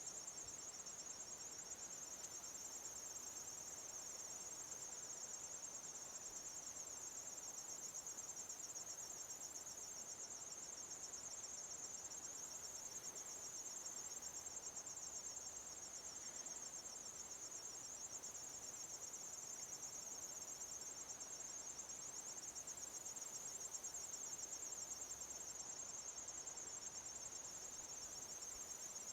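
A chorus of insects trilling continuously: a high, steady, rapidly pulsing buzz that does not break.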